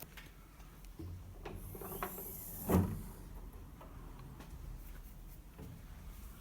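Steel toolbox drawer sliding on its runners, ending in a sharp knock a little under three seconds in, with a few light clicks around it.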